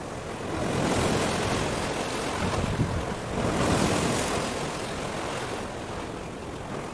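Sea waves washing and wind buffeting the microphone, a steady noisy rush that swells twice, about a second in and again about three and a half seconds in.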